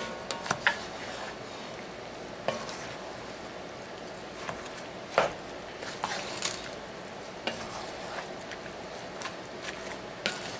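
Wooden spoon stirring chopped zucchini and shrimp in a frying pan, over a steady sizzle of frying, with the spoon knocking against the pan every second or two.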